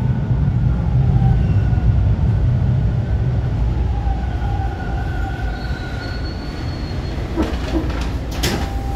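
Subway train braking into a station and coming to a stop: a low rumble fades as it slows, with faint high squeals, and a few sharp clunks near the end as it halts.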